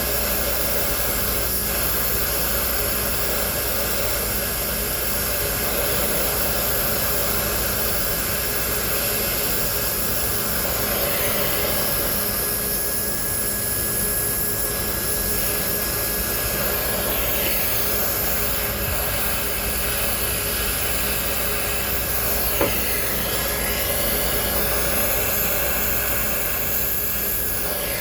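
Brazing torch flame burning steadily with a constant hiss while heating a copper line joint on an air-conditioning compressor. A single short click a little over three-quarters of the way through.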